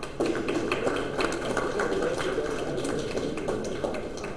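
Applause: a small group of people clapping steadily.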